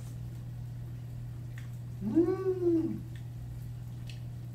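A man's appreciative "mmm" hum while tasting food, about two seconds in and lasting about a second, rising then falling in pitch.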